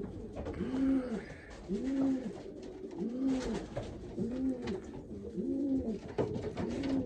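Racing pigeon cooing in the loft: a low, rounded coo that rises and falls, repeated about once a second, with a few faint clicks of handling between.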